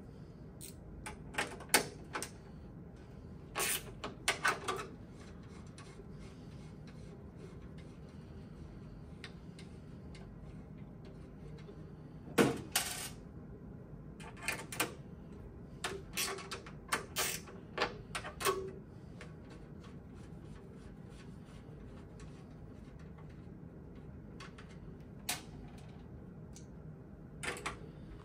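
Scattered metallic clicks and clinks of a hand tool turning the 10 mm nuts off a gas boiler's burner door, in short clusters with quiet gaps between. The sharpest clink comes about halfway through.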